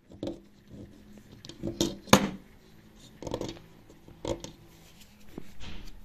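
Metal washing-machine heating elements knocking and clinking against each other and the floor as they are picked up and moved, about six separate short knocks, the loudest about two seconds in.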